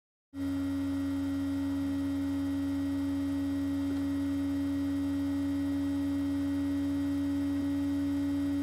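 Steady electrical hum: one strong low tone with a fainter deeper drone beneath, starting abruptly just after the start out of complete silence and holding unchanged.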